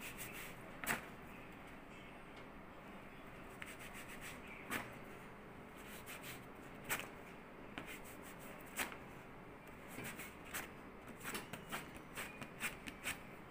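A hand rubbing a non-woven waxing strip down over wax on the skin of an arm: a faint steady rubbing with scattered sharp clicks and crackles from the strip. The clicks come more often near the end, as the strip is lifted off.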